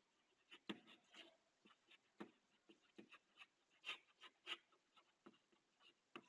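Chalk writing on a chalkboard: a faint run of short, irregular taps and scratches as the letters are written.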